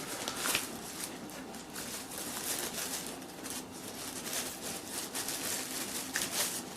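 Handling noise as a small camera carrying case is opened: irregular rustling and light clicks, with a couple of slightly louder handling sounds about half a second in and again near the end.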